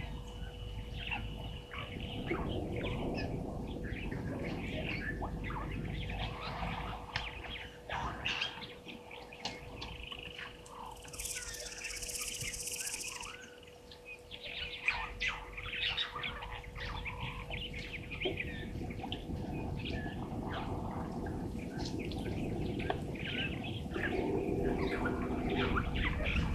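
Wild birds chirping and calling, many short overlapping calls, with a brief high hiss about halfway through and a faint steady hum underneath.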